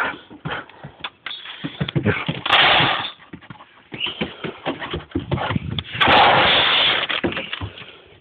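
Dry dog kibble rattling as it is scooped and poured into a metal bowl, in two longer pours a few seconds apart, amid short knocks and clatter from handling the food bin and bowl.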